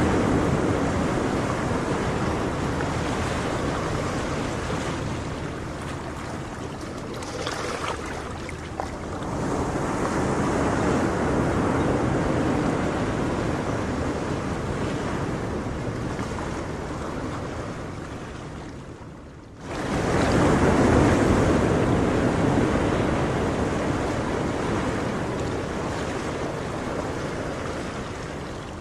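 Ocean waves washing in on a shore, swelling and fading in slow surges. A brief lull comes about nineteen seconds in, then a sudden loud surge.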